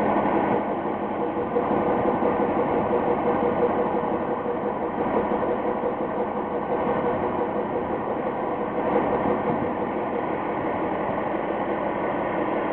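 A boat's engine running steadily, a constant drone with a steady hum through it.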